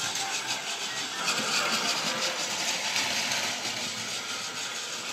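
Plarail 800 series Shinkansen toy train running at high speed: its small battery motor whirs steadily and its plastic wheels rattle along the plastic track with a fine, rapid clatter.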